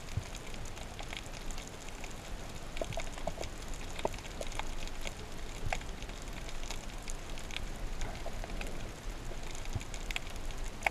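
Underwater ambience picked up by a submerged camera: a continuous crackle of irregular faint clicks and snaps over a low hiss.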